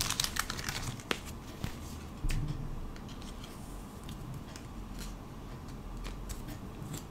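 Faint rustling and small clicks of a trading card and its plastic sleeve being handled.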